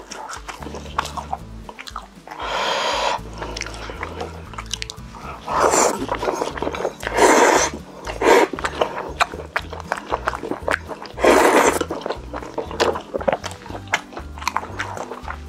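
Close-miked eating: wet chewing and smacking clicks throughout, with about five loud slurps of roughly half a second each.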